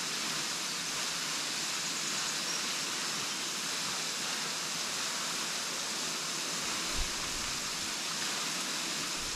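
Henrhyd Falls waterfall: a steady, even rush of falling water. A brief low thump about seven seconds in.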